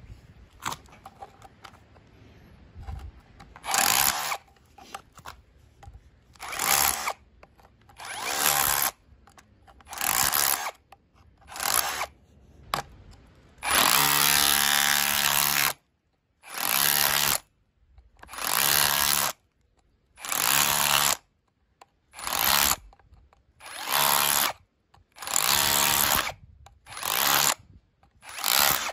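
Cordless hammer drill with a flat chisel bit hammering and chipping concrete in short bursts of about a second, repeated roughly every one and a half seconds, with one longer burst of about two seconds midway. The first few seconds hold only light scraping of the bit on the concrete.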